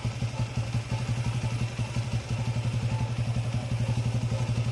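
A small engine running steadily with a fast, even putting beat.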